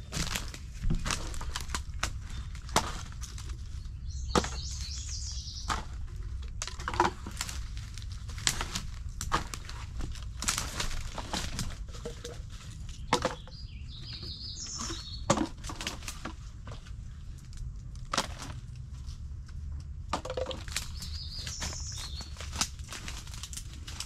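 Plastic bottles and dry debris being handled and pulled from brush: irregular crackling, snapping and crunching throughout. A bird chirps briefly three times, early, midway and near the end.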